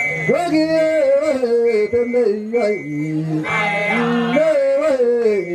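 Men singing a traditional Endorois chant: a lead male voice amplified through a handheld microphone, with other voices beneath it.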